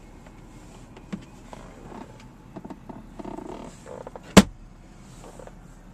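Small clicks and rustles from a pickup truck's cabin fittings being handled, with one loud, sharp click about four and a half seconds in.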